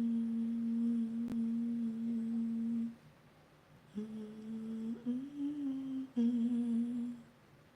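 A person humming long, held notes in three phrases. The first lasts about three seconds, the second steps up in pitch partway through, and a shorter third follows near the end.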